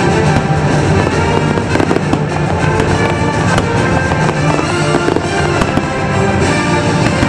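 Fireworks display: frequent sharp cracks and pops from fireworks over loud show music.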